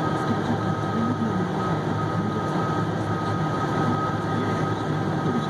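Articulated haul truck's diesel engine and drivetrain running steadily under way, heard from inside the cab, with a steady high whine over the low engine sound.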